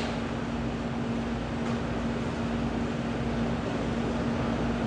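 Steady background hum and hiss of room noise, with one constant low tone running under it.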